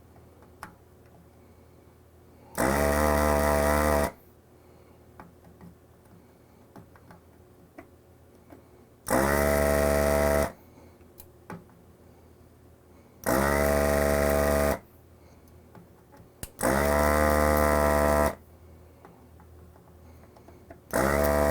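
Hakko FR-300 desoldering gun's built-in vacuum pump running in short bursts of about a second and a half each as the trigger is pulled to suck solder off a relay's pins, four times with a fifth starting near the end, with faint small clicks between.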